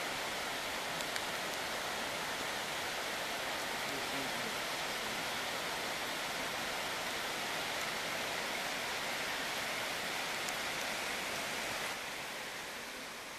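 Steady rushing hiss of water from the hurricane's rain and floodwaters, easing slightly near the end.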